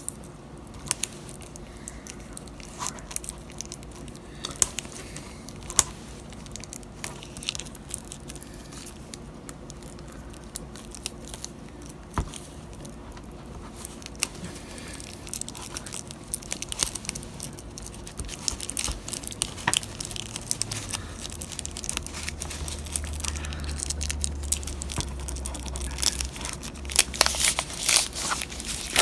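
Plastic wrapping being torn and peeled off a Blu-ray box set, with scattered crinkles and crackles that grow busier and louder near the end.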